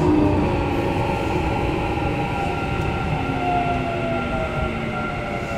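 Running sound of a Keikyu New 1000 series train from inside the car: the whine of its Mitsubishi IGBT-VVVF inverter motors falls steadily in pitch as the train slows, over a steady rumble of wheels on rails.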